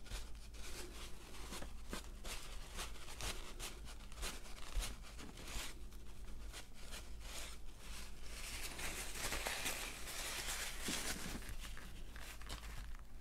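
A wad of tissue rubbing and dabbing over cardstock wet with glitter glue, a steady run of irregular dry, scratchy rustles as stray paintbrush bristles are wiped off the paper.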